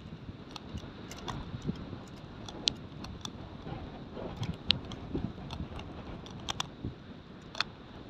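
Sectioned tent poles clicking and clinking as they are unfolded and their segments fitted together: a stream of light clicks with a handful of sharper ones.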